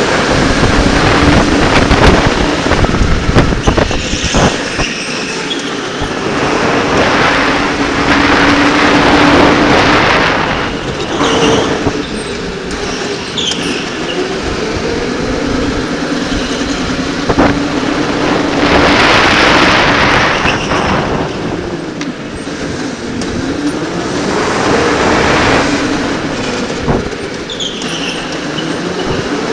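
Electric go-kart racing, heard from the driver's helmet: the motor's whine rises and falls in pitch with speed through the corners. Surges of rushing wind noise on the helmet microphone come and go over it.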